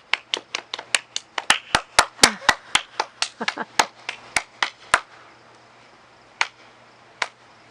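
Hand clapping from a few people: quick sharp claps for about five seconds, then two lone claps near the end.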